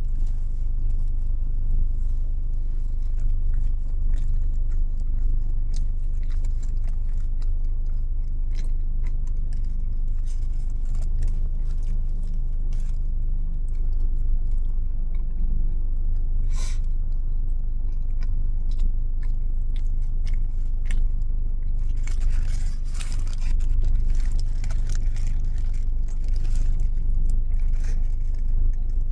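Close-up chewing and crunching of fast food with paper rustles, over a steady low car-cabin rumble; the crackly mouth and wrapper noises grow busier about three-quarters of the way through.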